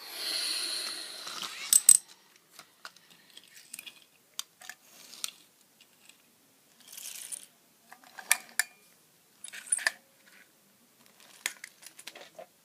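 Plastic toys being handled and moved: a scraping rush for about two seconds, then scattered small clicks and clatters.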